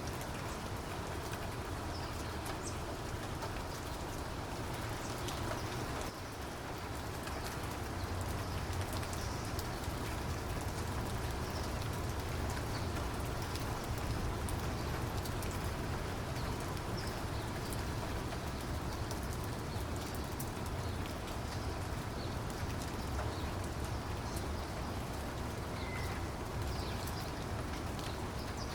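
Steady rain falling, with fine drop ticks over a constant low rumble.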